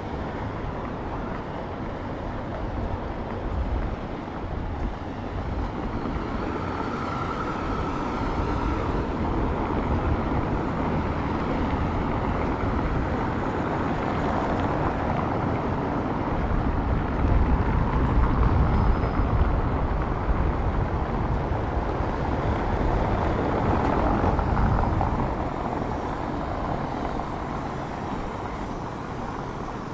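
City street traffic with vehicles driving past. One passes louder and closer for several seconds in the second half, then fades. A short high whine sounds early on.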